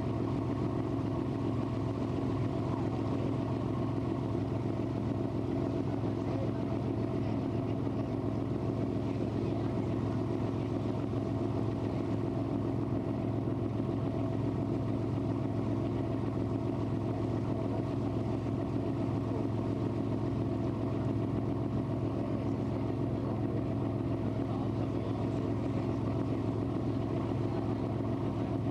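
Lake cruise boat's engine running steadily, heard from on board as a constant low drone that holds the same pitch throughout.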